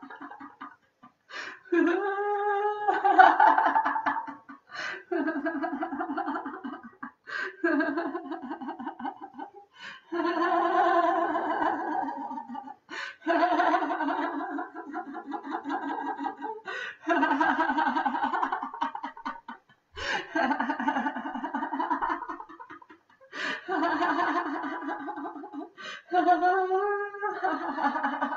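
A woman's deliberate laughter for a laughter yoga exercise: about nine bouts of continuous ha-ha-ha laughing, each two to three seconds long, with short pauses for breath between them.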